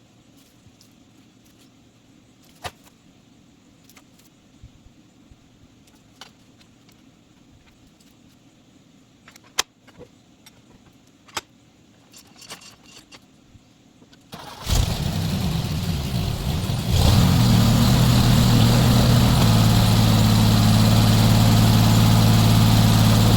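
Scattered light clicks and knocks over a quiet background, then about two-thirds through a sawmill's engine starts up and, a couple of seconds later, steps up to a loud steady run.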